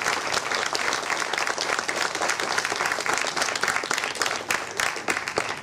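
Audience applauding: dense, even clapping from a hall full of people, thinning out near the end.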